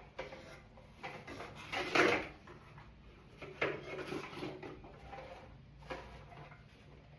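Box and packaging being handled during an unboxing: scattered rustles and light knocks, the loudest about two seconds in.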